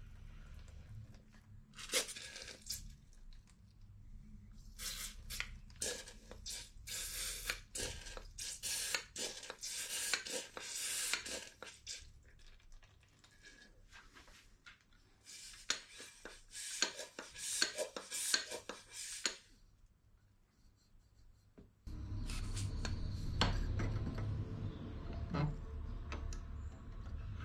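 Irregular metal clinks and scrapes, in bursts, from an old car shock absorber's steel tube and piston rod being worked by hand to drain the oil out of it. Near the end a steady low hum sets in suddenly, with a few clicks as the tube is handled against a bench vise.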